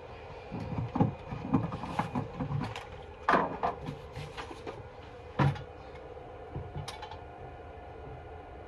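Irregular clicks and knocks from the gas pedal being pumped inside the car, with two louder thumps about three and a half and five and a half seconds in. No engine is heard running or cranking.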